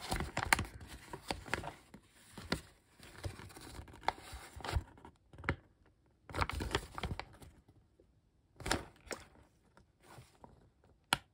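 Folded paper guide sheet being unfolded and handled: irregular rustling and crinkling with short pauses, and a sharp crack of the paper near the end.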